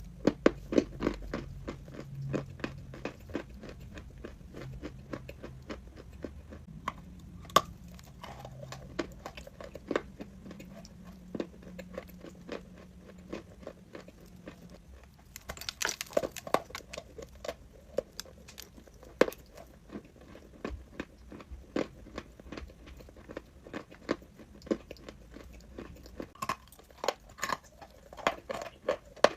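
A person biting and chewing crunchy chalk: a dense run of dry crunches and cracks, several a second.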